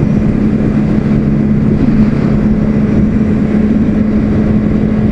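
Motorcycle engine running steadily at cruising speed, an even engine hum under heavy wind rush on the microphone.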